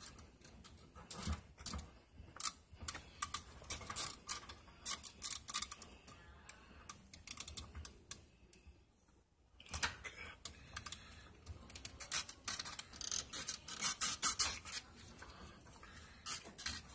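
Gloved hands handling the plastic and metal parts of a car's fuel pump and level sensor assembly in the open fuel tank: irregular clicks and rattles, with a short pause about nine seconds in.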